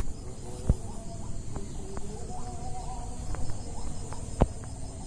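Steady high-pitched insect chirring, with a few sharp clicks and knocks, the loudest about a second in and again near the end.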